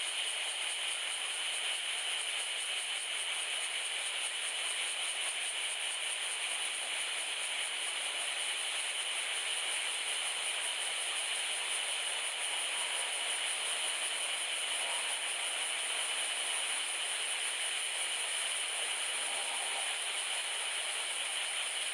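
Steady, high-pitched chorus of insects, unbroken and even throughout.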